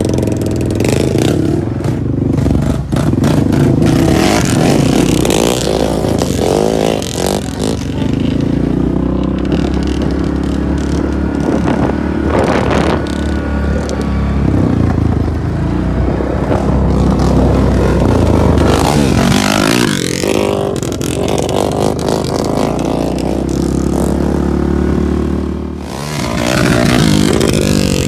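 Sport quad (ATV) engine being ridden around a gravel lot, its pitch revving up and dropping back again and again, with gravel crunching and clattering under the tyres.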